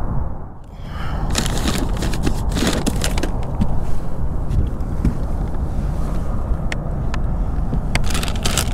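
Crinkling and rustling of paper wrapping and a plastic zip-top bag being handled while bloodworm bait is unpacked, in crackly spells about a second in and again near the end, over a steady low rumble.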